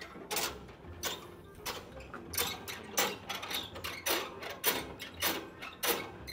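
A run of sharp clicks or knocks, about two a second, fairly regular throughout.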